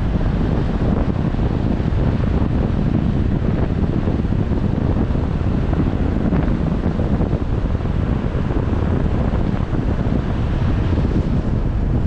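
Wind buffeting the microphone: a steady, low rushing rumble with no distinct events.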